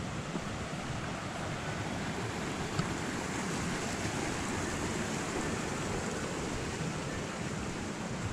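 Small mountain stream rushing steadily over little cascades.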